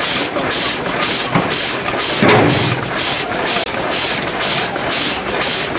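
A vertical marine steam engine built by M.C. Stephenson in 1992 running on steam, its exhaust hissing in a steady beat of about four puffs a second. There is one brief louder burst about two seconds in.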